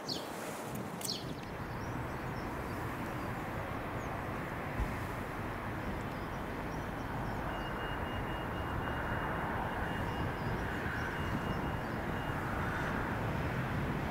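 Class 37 diesel locomotive's English Electric V12 engine droning steadily as it approaches, slowly growing louder. A thin, pulsing high tone sounds over it for a few seconds in the middle.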